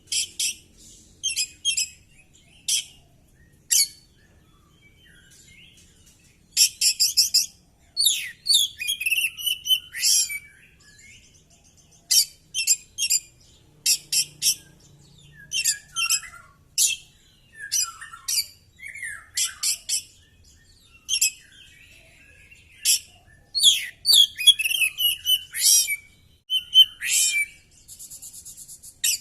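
Oriental magpie-robin singing in bursts of rapid, sharp chirps and short whistled phrases, with brief pauses between bursts, running through a varied repertoire of song material.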